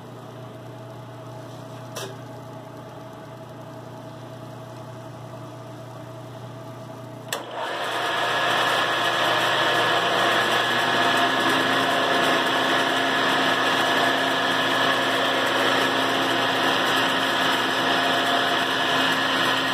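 A low steady hum, then about seven seconds in a power tool is switched on with a click. Its motor spins up over a few seconds and then runs steadily at full speed with a loud hiss.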